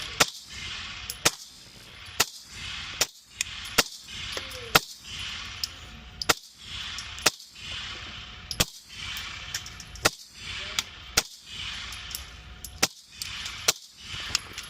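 Ruger PC Carbine Model 19100 9mm pistol-caliber carbine firing single shots in steady semi-automatic fire. There are about fourteen sharp reports, roughly one a second.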